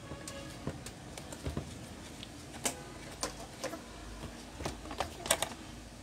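Screwdriver working the back-cover screws of an electric fan's plastic motor housing: scattered light clicks and taps of metal on plastic, the loudest a close pair about five seconds in.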